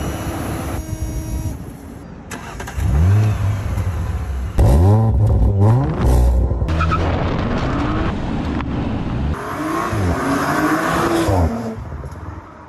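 Audi car engine running steadily, then revved in several blips, each rising and falling in pitch, before the sound fades out near the end.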